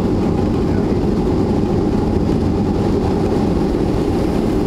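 Steady, loud roar of a Boeing 737's jet engines and landing roll heard inside the passenger cabin as the plane slows on the runway just after touchdown.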